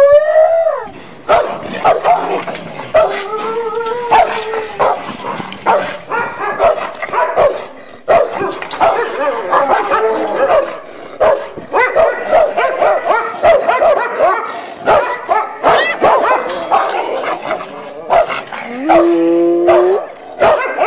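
Dog yipping, barking and whining in quick irregular calls, with rising whine-like glides near the start and near the end.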